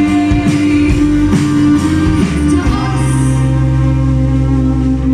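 Live guitar-and-vocal music: strummed guitar under a long held sung note, settling about three seconds in into a sustained closing chord.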